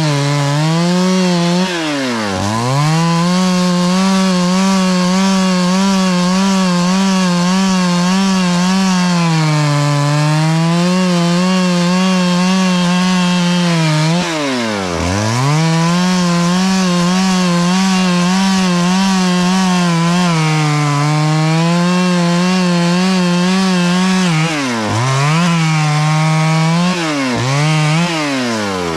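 Chainsaw running at high revs as it cuts through a tree, its pitch wavering under load. The revs drop sharply and recover quickly several times: about two seconds in, midway, and three times near the end.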